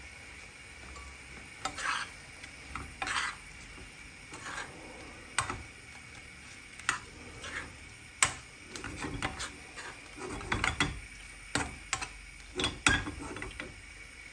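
A spoon stirring shrimp and mussels in a frying pan, with irregular scrapes and clinks against the pan, busiest in the second half, over a faint steady sizzle of the food cooking.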